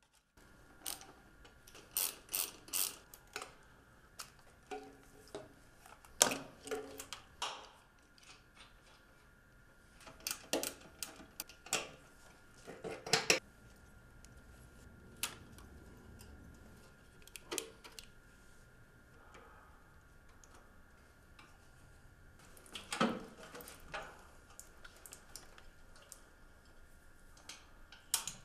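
Scattered clicks, clinks and light knocks of hand tools and metal fasteners as a motorcycle's battery cable and fuel tank are unbolted, some in quick runs like a ratchet, over a faint steady hum.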